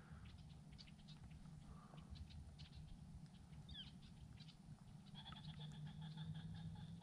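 Near silence with faint duck calls: a short falling whistle-like note a little before the middle, then a longer, steady call from about five seconds in.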